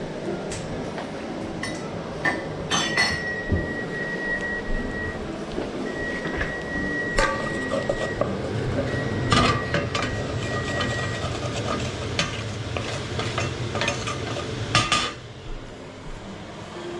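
Metal utensil stirring and scraping in a frying pan, with repeated clinks and knocks against the pan over a steady sizzle of garlic in hot olive oil. A thin whistle-like tone comes and goes through the first half, and the clattering and sizzle die down about two seconds before the end.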